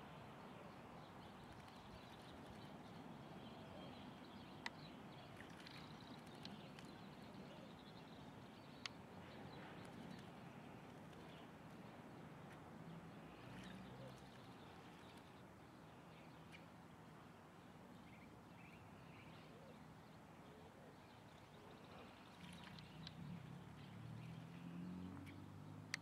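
Faint light splashing of a chalk-browed mockingbird bathing in a shallow dish of water, a little livelier near the end, over a quiet outdoor background with two soft clicks.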